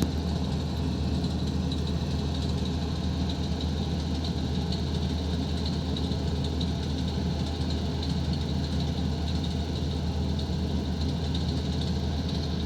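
Horizontal directional drilling rig's Dongfeng Cummins diesel engine running steadily at a constant idle-like speed, a low, even hum.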